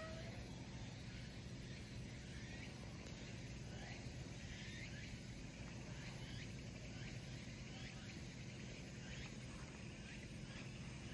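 Faint birds chirping in the background, short calls repeating every half second to a second, over a steady low hum.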